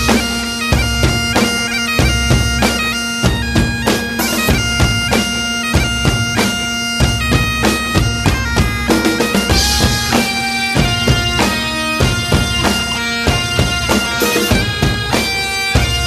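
Great Highland bagpipes playing a tune over their steady drone, with a drum beat underneath.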